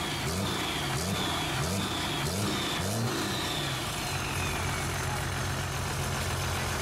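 Diesel engine of a dually rat rod revved in quick repeated blips, about two a second, then settling to a steady idle about three seconds in, with a high whine falling away as it settles.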